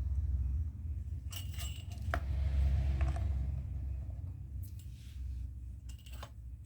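Scattered light clicks and clinks of small hard objects being handled, several in quick succession, with brief ringing after some, over a steady low hum.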